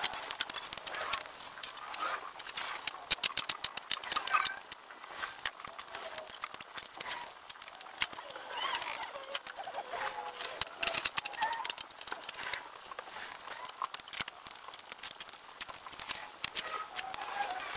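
Work sounds from stacking firewood, sped up about twentyfold: a rapid stream of clicks and clacks as logs are knocked and set down, mixed with short squeaky chirps from the sped-up background sound.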